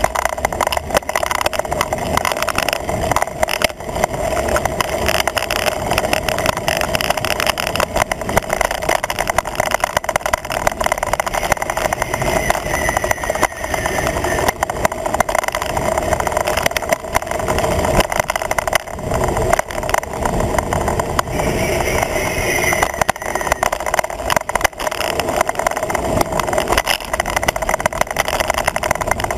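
Wind rushing over a handlebar-mounted action camera on a road bike at speed, with steady road vibration knocking through the camera mount.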